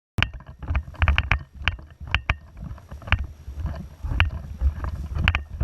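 Wind rumbling on the microphone, with irregular sharp clicks and knocks throughout.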